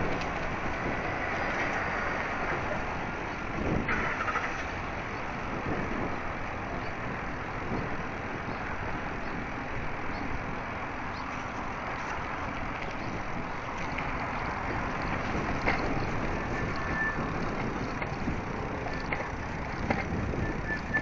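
Steady wind rush and road noise from riding an electric-converted road bicycle, with a few faint clicks and no brake squeal.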